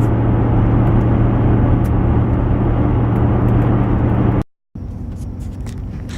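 Truck driving, heard from inside the cab: a steady engine hum with road noise. About four and a half seconds in it cuts off abruptly and gives way to a quieter background with scattered light clicks.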